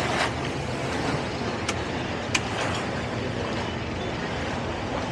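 Towboat's outboard engine idling steadily, with a couple of sharp clicks.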